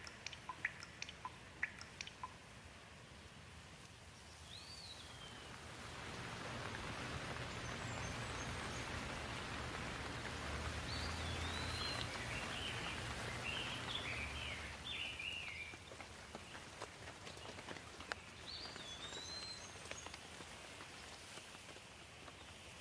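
Rain falling, with a few sharp drips at the start; the rain swells from about five seconds in and eases off again over the second half. Birds chirp over it several times.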